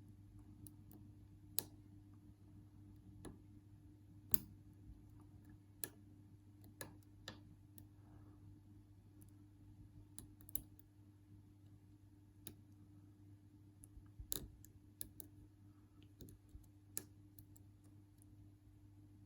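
Irregular faint clicks and ticks of a lock pick and tension wrench working the pins inside a Union padlock, with a low steady hum underneath.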